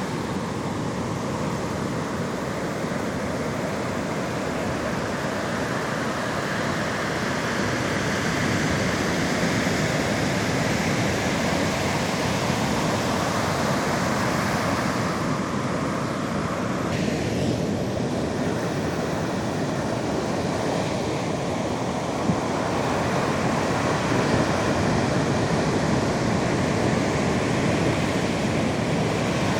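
Steady rush of sea surf washing on the shore.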